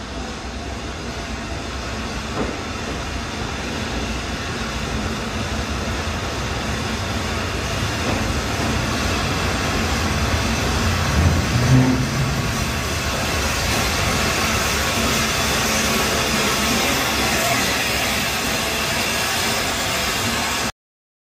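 Peppercorn A1 Pacific steam locomotive 60163 Tornado running into the station and past along the platform, followed by its coaches rolling by. The noise builds gradually, is loudest as the engine passes about eleven seconds in, and cuts off suddenly near the end.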